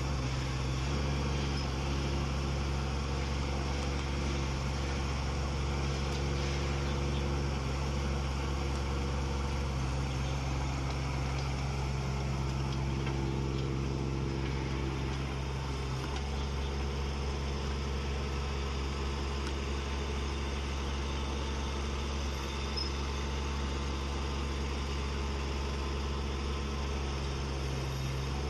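Small excavator's Kubota diesel engine running steadily, its note shifting slightly a few times.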